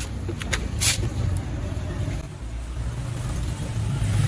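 Low rumble of a motor vehicle's engine running nearby, growing louder near the end, with a few faint clicks in the first second.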